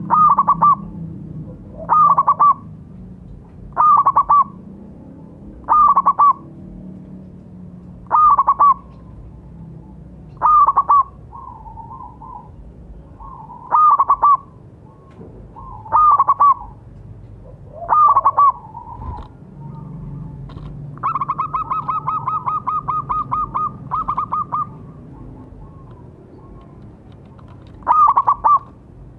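Zebra dove (perkutut) singing: short, loud cooing phrases repeated about every two seconds. A little past halfway comes a run of rapid, evenly spaced notes lasting about three seconds.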